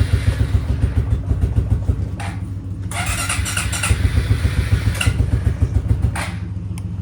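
2004 Suzuki King Quad ATV engine running cold, its throttle blipped in several short surges to keep it from dying in the freezing air, easing back near the end.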